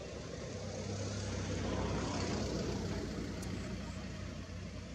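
A motor vehicle's engine running, its hum swelling to a peak about two seconds in and then easing off, as a vehicle going past does.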